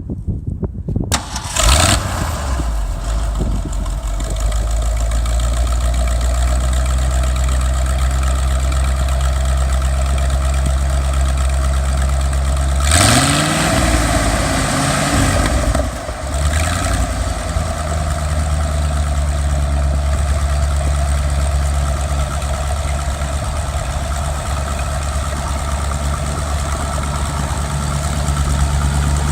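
Ford irrigation engine starting, catching within about two seconds and settling into a steady idle. Around the middle it is revved up briefly and drops back, then idles steadily again.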